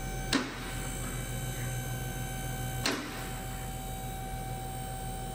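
A steady high-pitched mechanical whine over a low hum from the running car, broken by two sharp clicks, one near the start and one about three seconds in.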